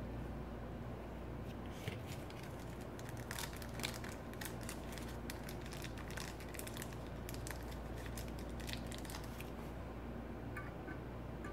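Thin plastic bags crinkling in a stream of short crackles as small metal parts are handled and taken out of them, over a steady low hum. A couple of light clicks near the end.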